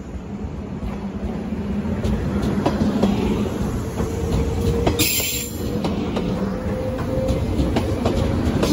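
JR 381 series limited express electric train running past along the platform, a steady rumble of wheels and running gear growing louder as it nears. A thin whine sits over it through the middle, and a short sharp hiss comes about five seconds in.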